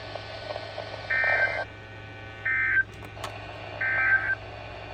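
Three short bursts of the NOAA Weather Radio SAME digital data signal, a buzzy two-tone warble, about a second and a half apart: the end-of-message code that closes the flash flood warning broadcast.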